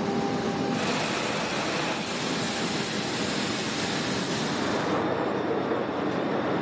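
Steel rolling-mill machinery running with a steady industrial rumble and hum. About a second in, a loud rushing hiss of steam off hot steel joins it, easing off around five seconds.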